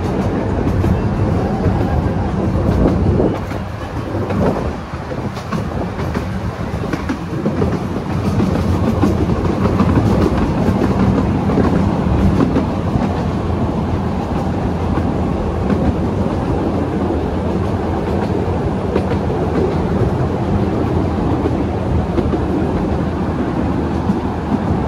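12-inch-gauge miniature railway train running along the track, heard from an open carriage: a steady rumble of wheels on the rails that dips briefly about four seconds in.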